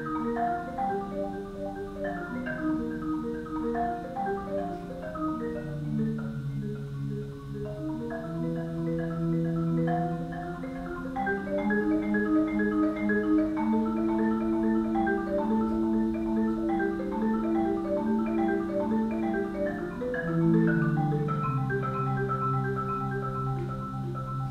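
Solo marimba played with four mallets: a steady stream of short, overlapping notes in the middle and upper range over longer low notes.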